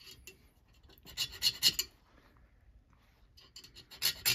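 Fine hand file rasping in short strokes across the end of a two-stroke piston ring, a quick run about a second in and more near the end, opening up a ring end gap that is still slightly tight.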